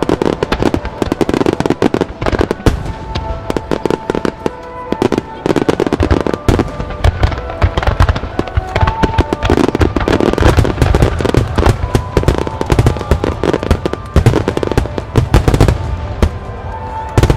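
A large wide starmine fireworks display: a dense, continuous barrage of shell bursts and crackling, with held notes of orchestral theme music sounding underneath.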